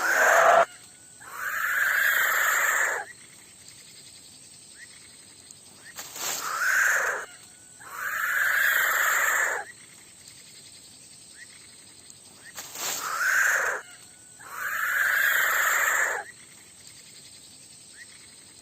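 Breathy animal hissing in pairs, a short hiss followed by a longer one, repeating about every six and a half seconds.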